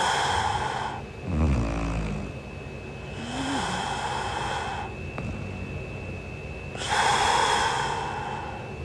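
A sleeping young woman snoring: slow, noisy breaths that hiss in and out, with a short, low, rattling snore about a second and a half in.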